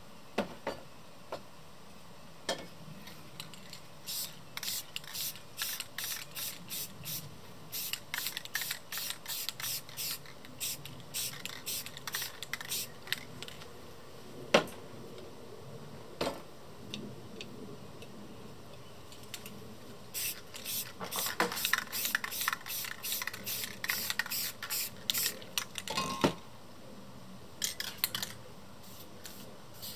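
Rust-Oleum American Accents spray paint cans sprayed in many short, quick puffs, in two long runs of rapid bursts, with a few sharp clicks in between.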